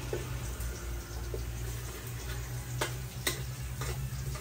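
Stir-fried eels sizzling quietly in the pan over a steady low hum, with two sharp clicks about three seconds in.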